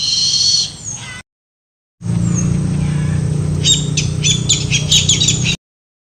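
Recorded calls of a barred rail played as a lure: a short call with high tones at the start that cuts off abruptly, then, over a low steady hum, a fast run of about eight sharp repeated notes that stops suddenly.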